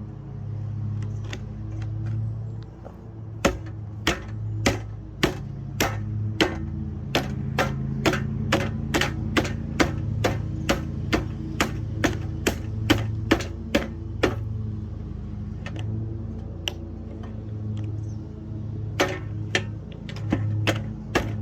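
Lasko box fan running with a steady, slightly pulsing low hum. Over it, sharp clicks come in fast, uneven runs of about two a second, stopping for a few seconds in the middle.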